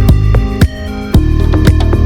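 Loud electronic background music with a heavy beat and a deep bass line.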